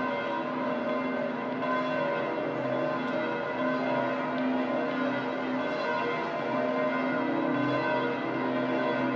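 Church bells pealing: several bells ringing together, their overlapping tones sounding without a break.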